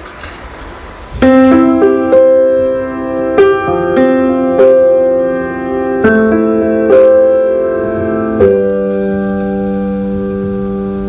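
Solo piano introduction: after a brief hush, chords begin about a second in and change every second or so, ending on one long held chord.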